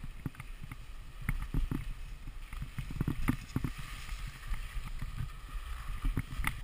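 Skis sliding and scraping over snow, with irregular knocks and taps, over a low wind rumble. The swishing grows louder around the middle.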